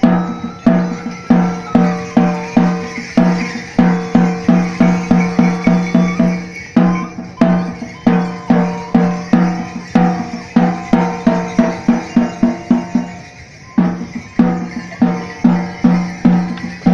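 Percussion music led by a drum beaten in a fast, even rhythm, about three strokes a second, each stroke ringing at the same low pitch. The beat breaks off briefly twice, about seven and thirteen seconds in.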